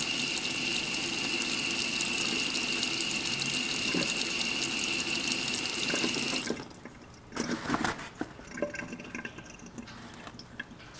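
Stream of water from a tap pouring onto water-repellent 1000D Cordura nylon fabric, a steady splashing with a thin high whistle in it, cut off abruptly about six and a half seconds in. A few faint knocks and rustles follow.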